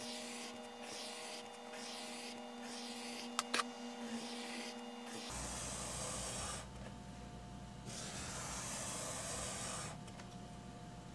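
Graphite pencil scratching across sketchbook paper while drawing vertical lines: a run of short strokes, then two longer strokes of a second or two each in the second half. Two sharp clicks about three and a half seconds in.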